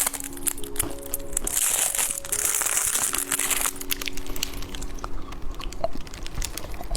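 Candy snacks crunching and crinkling: many quick sharp crackles, over soft background music with held notes.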